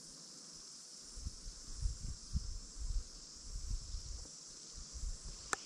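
Steady high-pitched insect chorus, with soft low rumbles on the microphone from about a second in and one sharp click near the end.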